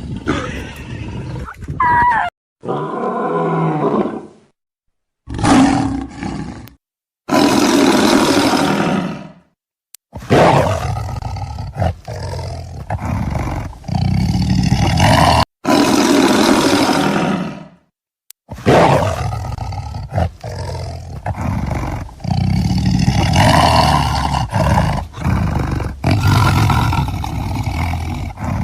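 A series of loud wild-animal roars and growls, cut together one after another with abrupt stops and short silent gaps between them.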